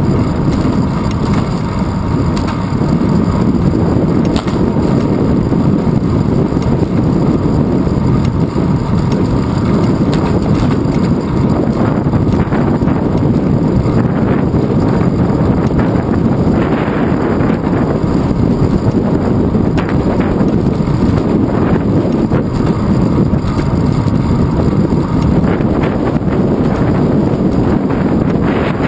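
Steady rumble of wind buffeting a handlebar-mounted GoPro Hero 2 microphone on a moving bicycle, mixed with road noise from the tyres and handlebars.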